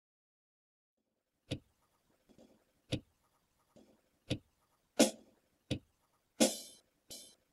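A series of seven sharp clicks and knocks: three about a second and a half apart, then four quicker ones about 0.7 s apart. The last two trail off in a short rustling hiss.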